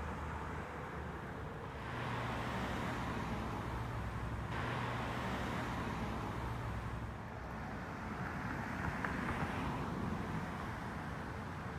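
Road traffic: the steady rumble and hiss of cars driving past, swelling and easing as they go by.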